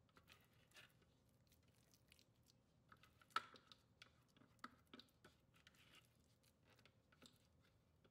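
Faint, scattered soft clicks and wet scrapes, one louder about three and a half seconds in: a spatula scraping thick burger mixture out of a plastic blender container onto a plate.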